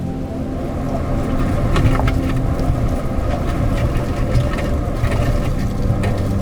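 Storm wind gusting over a microphone: a loud, steady low rumble with hollow hum-like resonances and scattered light ticks and rattles.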